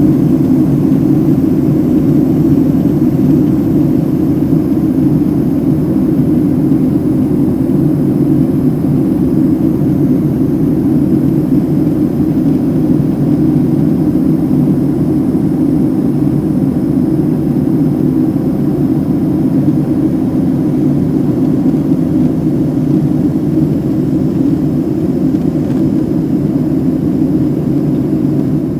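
Steady drone inside the cabin of a Boeing 767 airliner: jet engine and airflow noise, even and unchanging.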